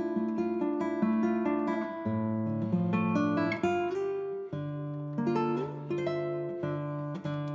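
Background music: acoustic guitar playing plucked notes and chords over low bass notes.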